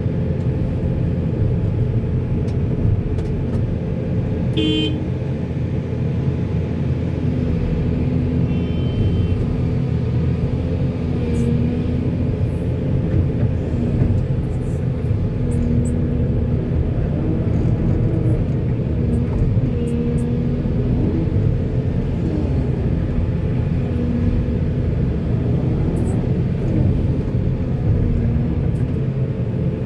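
Heavy diesel construction machinery, a backhoe and dump truck, running steadily with a low rumble, the engine pitch wavering slightly under load. A short beep sounds about five seconds in and again about nine seconds in.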